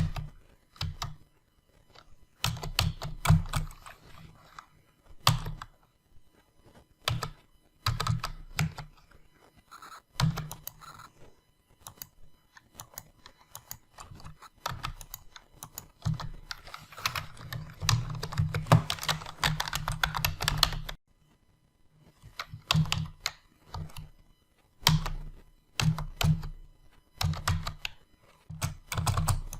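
Computer keyboard being typed on in irregular bursts of keystrokes with short pauses between, and a longer run of fast typing past the middle that stops abruptly.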